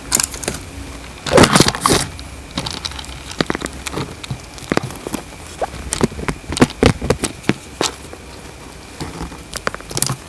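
Handling noise: irregular clicks, knocks and crinkles of things being picked up and moved, with a louder cluster of knocks about a second and a half in.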